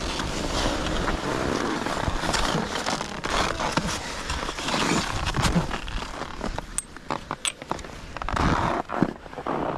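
Skis and ski poles scraping and crunching on snow, with the rustle of a ski jacket. A steady rushing scrape runs for about the first six seconds, then turns to scattered crunches and clicks.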